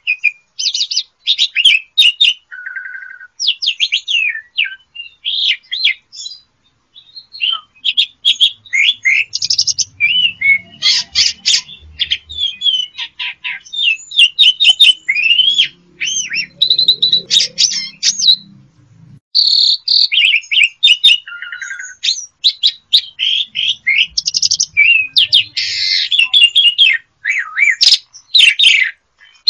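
Pied starling (jalak suren) singing a long, varied song of rapid whistles, chattering notes and rising and falling slurs, delivered in loud bursts with brief pauses between phrases.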